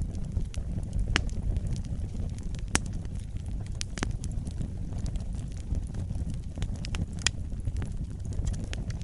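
Wood fire burning in a fireplace: a steady low rumble of flames with scattered crackles and sharp pops.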